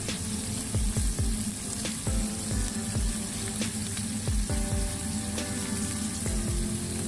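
Shrimp sizzling in hot oil in a nonstick frying pan, with a few light clicks of wooden chopsticks against the pan as the shrimp are turned.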